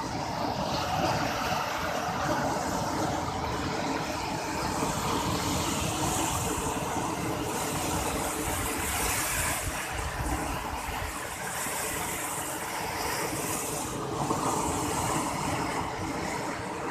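Steady rushing noise of a large ship under way at sea: water churning along the hull, over a faint steady machinery hum.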